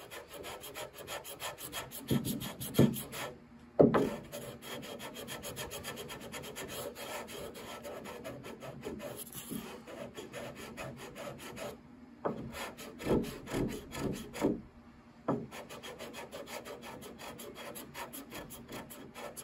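Hand-sanding the old finish and burn-in fills on a rosewood piano case with 220-grit sticky-back sandpaper on a hard, flat block: fast back-and-forth rasping strokes, broken by a few short pauses, with several louder knocks. It is levelling the repaired finish before French polishing.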